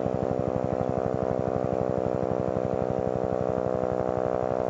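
Helicopter running: the rapid, even beat of the rotor blades over a steady engine hum, holding the same level throughout.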